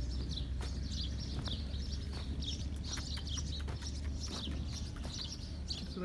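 Small birds chirping: many quick, high chirps one after another, over a low steady hum.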